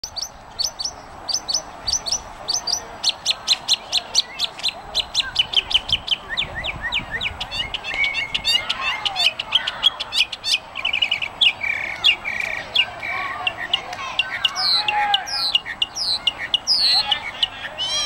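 A songbird singing a long, varied song: runs of rapidly repeated high chirps that change every few seconds into faster trills and whistled slurs.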